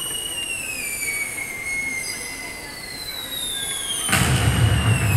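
Fireworks sound effects from a projection-mapping show's sound system: falling whistling tones, then a sudden loud burst with a deep boom about four seconds in.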